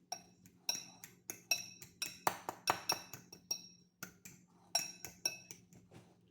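A utensil striking a bowl over and over while mashing cooked chickpeas, leaving some whole: repeated clinks, about three a second, each with a short ringing tone, with a brief pause about four seconds in.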